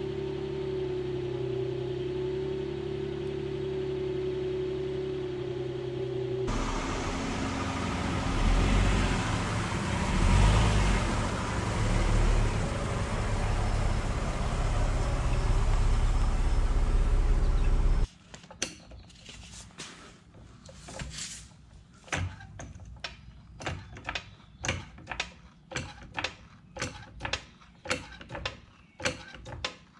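Infiniti M35's V6 idling steadily through its exhaust, then a louder rushing noise for about ten seconds. From about two thirds of the way in, a floor jack is pumped under the car: a run of sharp clicks, one or two a second.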